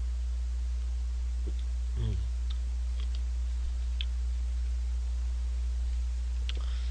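A few faint, scattered clicks from a plastic juice bottle and its cap being handled, over a steady low hum. A brief low vocal sound comes about two seconds in.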